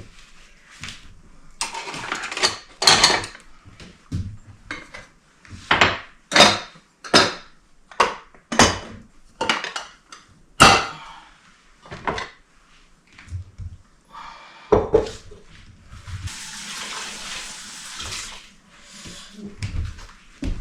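Dishes and cutlery clattering as they are handled and stacked at a kitchen sink: a string of sharp clinks and knocks. For about two seconds, a little past three quarters of the way through, the tap runs.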